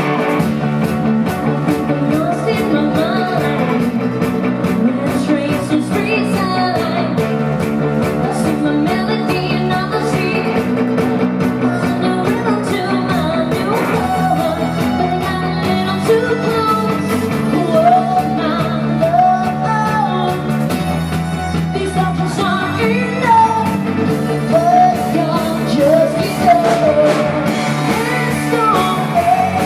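Live rock band playing a song, with a lead vocal over guitar, bass and drums.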